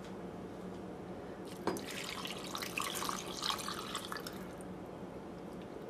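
Water poured from a glass measuring cup into a pressure cooker packed with browned turkey bones, splashing and trickling over them from about a second and a half in until near the end, starting with a light knock.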